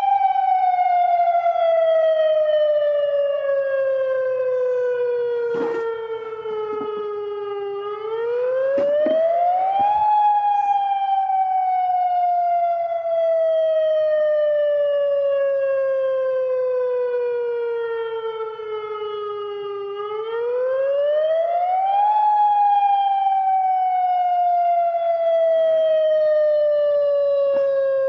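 Outdoor warning siren wailing in slow cycles. The pitch falls slowly for about ten seconds, then climbs back up in about two, and this repeats twice.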